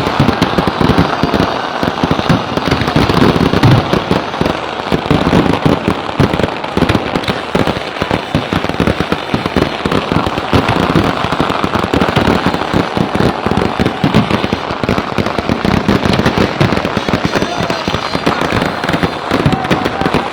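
Fireworks and firecrackers going off in a dense, unbroken stream of rapid bangs and crackles, too many to count.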